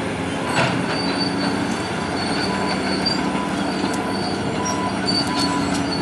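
Heavy demolition machinery at work: the diesel engines of a Caterpillar excavator and a loader running steadily, with intermittent high metallic squeals and a sharp clank about half a second in.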